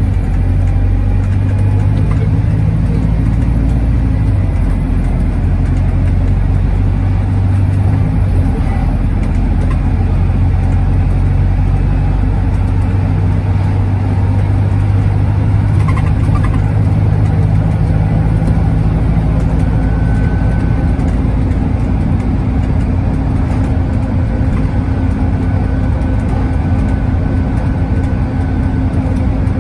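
Cabin sound of a Volvo B5TL double-decker bus travelling at speed: a steady low drone of the engine, with tyre and road noise heard from inside the cabin.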